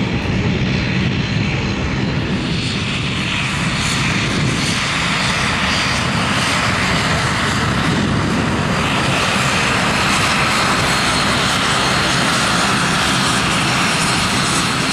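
De Havilland Canada Dash 8 Q400's twin Pratt & Whitney Canada PW150A turboprops with six-blade propellers running at low power while the aircraft taxis, a steady loud propeller drone with a low hum underneath.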